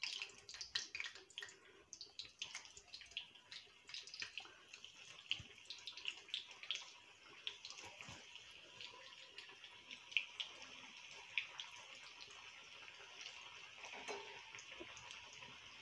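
Kothimbir vadi pieces frying in hot oil in a kadhai: a sizzle full of pops and crackles as the pieces go in, thinning after about eight seconds into a fainter, even sizzle.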